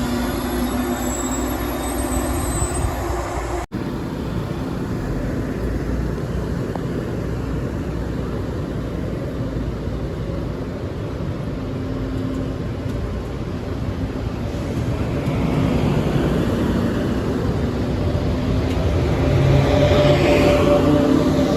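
A train moving along the rails: a steady rumble of wheels and running gear, with thin high wheel squeal in the first few seconds. The sound swells near the end.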